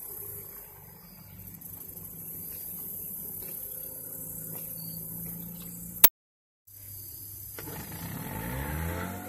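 Small outboard motor pushing a jon boat, running steadily at a distance. About six seconds in comes a sharp click and a brief dropout, then the motor runs louder and its pitch bends as the boat passes close by.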